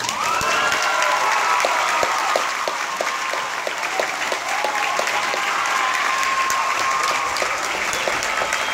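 An audience clapping and cheering, with high whoops and shouts riding over the applause.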